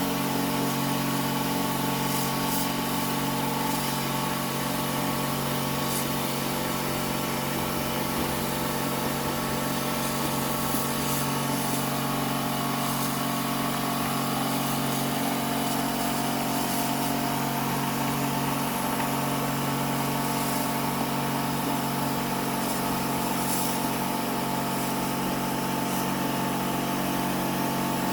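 A motor running steadily with an even hum and hiss, unchanging throughout.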